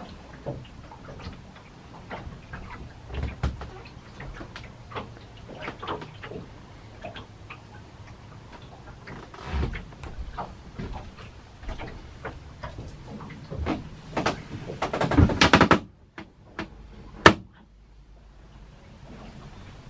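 Irregular small knocks and clicks from someone moving about and handling things inside a boat's cabin. About fifteen seconds in comes a dense run of knocking lasting a second or two, and a little later a single sharp click.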